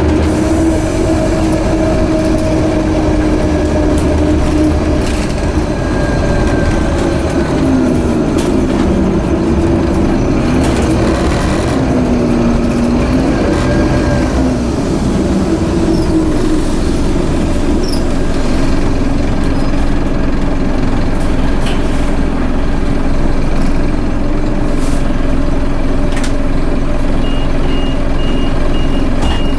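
Scania OmniCity bus with a broken differential driving along: the differential's whine rises and falls in pitch with road speed over the low rumble of the Scania DC9 diesel engine. A rapid high beeping comes near the end.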